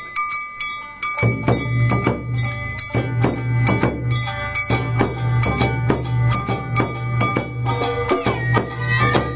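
Awa Odori festival music: a metal gong struck in a brisk, steady rhythm with a high ringing tone, and about a second in drums and the rest of the band come in loudly.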